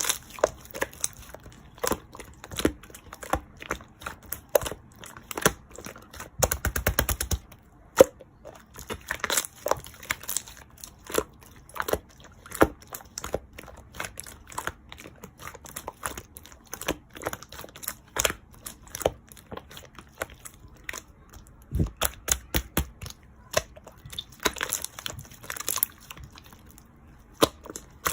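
Close-up handling of small objects: irregular taps, clicks and crinkling, with a brief rapid rattle about six and a half seconds in.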